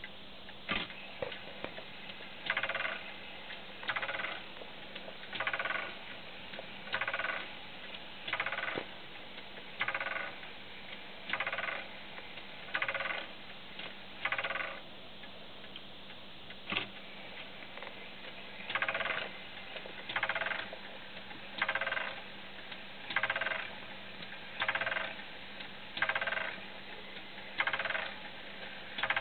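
Comtoise (Morez) clock movement striking: evenly paced hammer blows on the bell about one and a half seconds apart, each ringing briefly. A run of about nine strikes is followed by a pause with a single click, then a second run at the same pace.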